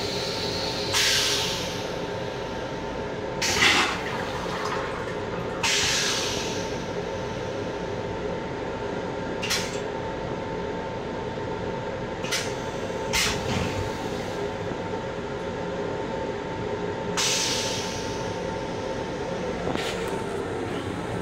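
Steady hum of an M7 railcar heard inside its small restroom, broken by about eight short hisses, the loudest about three and a half seconds in.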